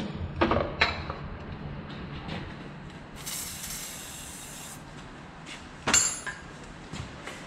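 Aerosol spray can hissing as it sprays the wheel hub, one burst of about a second and a half some three seconds in. Metal knocks and clinks come before and after it.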